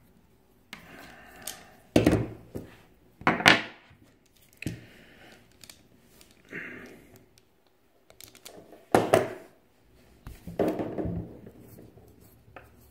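Automatic self-adjusting wire stripper clamping and snapping on a thin red wire, stripping off its insulation: several separate sharp clicks and snaps with softer scraping and handling between them.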